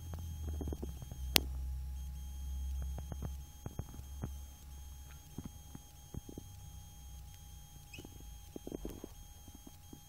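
Handheld camera handling noise: a low rumble with scattered clicks and knocks, and one sharp click about a second and a half in, over a faint steady electronic whine.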